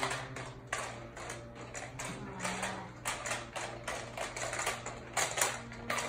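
Clear plastic hamster balls rolling over the ties of a plastic toy train track, clattering in rapid, irregular clicks that are loudest about five seconds in, over a steady low hum.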